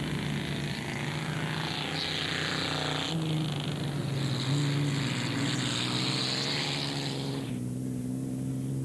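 Race car engines running hard on a dirt track, a steady low drone whose pitch steps up about three seconds in. A loud hissing rush over the engines stops suddenly about seven and a half seconds in, leaving the engine drone alone.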